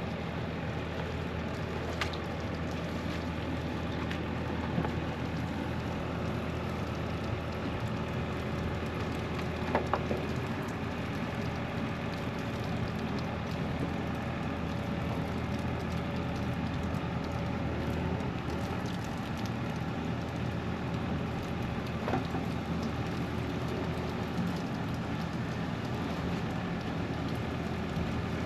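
Steady rain falling, with an engine running evenly underneath and a few brief knocks scattered through.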